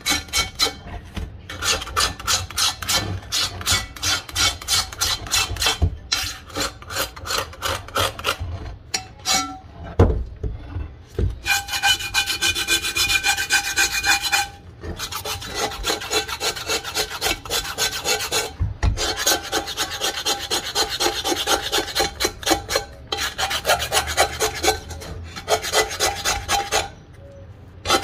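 A knife blade scraping rust and crust off an old cast-iron pot in quick back-and-forth strokes, about three a second, with a few short pauses. During the longer stretches of scraping the iron pot rings with a few steady tones, and there is a dull knock about ten seconds in.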